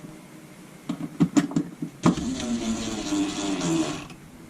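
A few handling clicks, then a small cordless drill-driver motor whirs for about two seconds, its pitch wavering under load as it drives a stainless pan-head screw into a plastic wall anchor.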